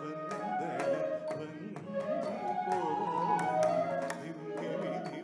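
Carnatic classical ensemble playing: a bamboo flute melody sliding and bending between notes over sharp hand-drum strokes and small-cymbal beats.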